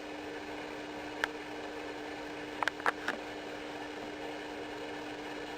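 A steady hum of room tone with a few brief, high whimpers from a puppy: one about a second in and three quick ones close together near the middle.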